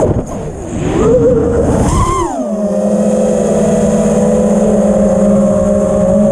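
FPV freestyle quadcopter's brushless motors and propellers whining. The pitch swoops with hard throttle changes and rises sharply about two seconds in, then holds a steady whine as the quad cruises.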